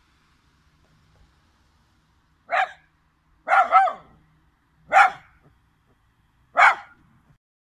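Chinese crested dog barking: five short barks, a single one about two and a half seconds in, then a quick pair, then two more singles about one and a half seconds apart.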